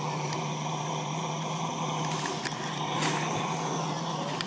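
An engine running steadily with an even low hum, with a few short clicks over it.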